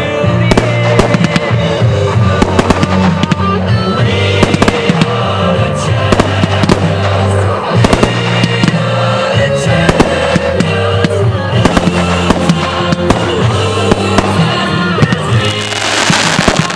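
Fireworks bursting and crackling in quick succession over loud music with a held, shifting bass line. Near the end a hissing rush starts as ground fountains spray sparks.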